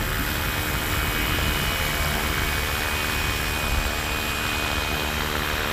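FW450 450-size electric RC helicopter flying low: steady whine of its electric motor and spinning rotors, with an uneven low rumble of wind on the microphone.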